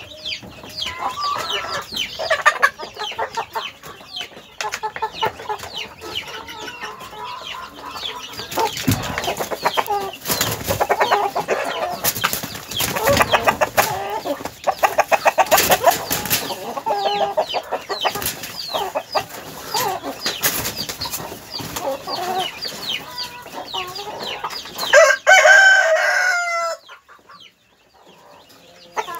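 A flock of chickens clucking and calling, many short calls overlapping, with one loud, drawn-out call about 25 seconds in that stops abruptly.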